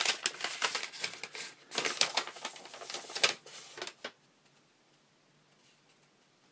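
Rustling and crinkling of packing filler and paper as a box is rummaged and a folded note is pulled out, full of sharp crackles for about four seconds, then it stops.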